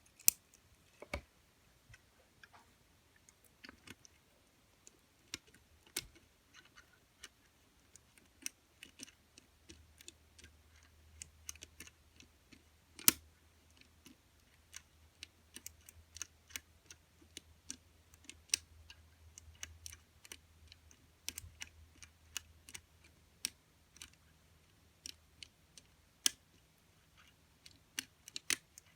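Irregular small metal clicks and ticks of a homemade wire pick and tension tool working the levers inside an all-steel four-lever Squire 660 lever padlock. One click, about midway through, is sharper and louder than the rest.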